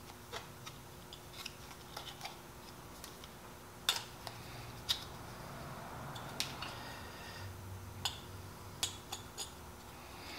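Teflon thread-seal tape being pulled off and wrapped by hand around the threads of a small fitting: faint crinkling with a scatter of sharp little clicks, the strongest about four and five seconds in.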